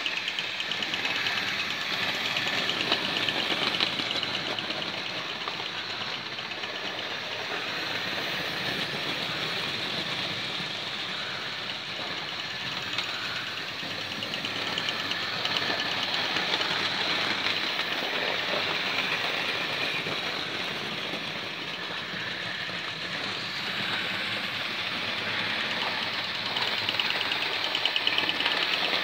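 Hornby 00-gauge model locomotives with 0-6-0 chassis running on the track with their wagons: a steady whirr of small electric motors and fine rattling of wheels on the rails, swelling and fading gently as the trains come near and go by.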